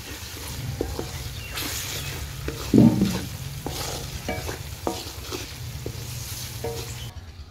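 Wooden spatula stirring and scraping masala frying in oil in an aluminium pot: a steady sizzle with repeated clicks and scrapes of the spatula against the pot, and one louder knock about three seconds in. The masala is almost fully fried, with the oil separating.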